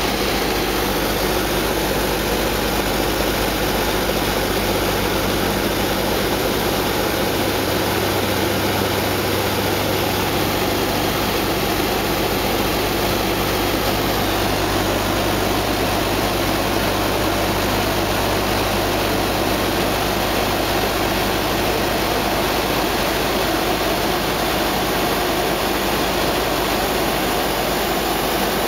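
Steady drone of the B-25 Mitchell bomber's twin radial engines and propellers in cruise, heard from inside the cockpit with airflow noise over it.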